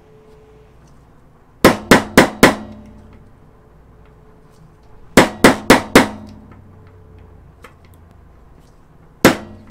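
Small ball-peen hammer tapping a roll pin punch, driving a roll pin home through a rifle charging handle and its finger catch. There are two quick runs of four taps, then a single tap near the end.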